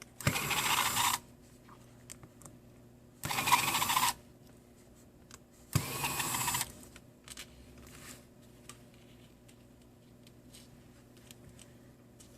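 Small electric screwdriver running in three short bursts, each just under a second, as it backs out the phone's housing screws, with faint clicks of handling between.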